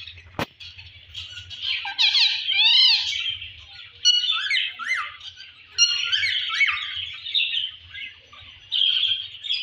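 Rose-ringed (Indian ringneck) parakeet chattering in a run of squawks, chirps and quick rising and falling whistled calls, in a good mood. A single sharp click comes about half a second in.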